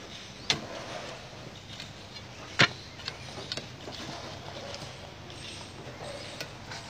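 Sledgehammer striking a large rock: two sharp blows, one about half a second in and a louder one a couple of seconds later, followed by a few lighter knocks.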